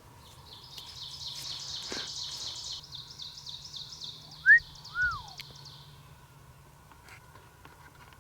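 Songbirds singing in woodland: a long, high trill of rapidly repeated sweeping notes, with two louder clear whistled notes about halfway through.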